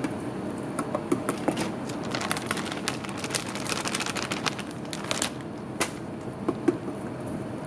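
Wire whisk lightly tapping and clicking against a stainless steel bowl while mixing tempura batter, the batter deliberately only patted together and not beaten. Irregular quick clicks, thickest in the middle stretch.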